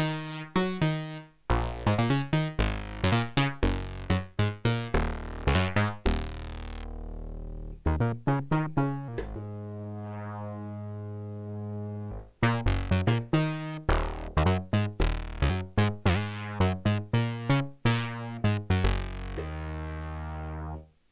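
Nunomo Qun mk2 synthesizer playing a run of short plucked notes that decay quickly, with a few long held notes in between, including one of about three seconds in the middle. The notes are shaped by its VCF envelope and filter cutoff, which are being adjusted while it plays.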